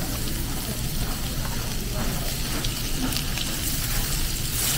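Steady road and engine noise inside a moving car: a low rumble under a high hiss.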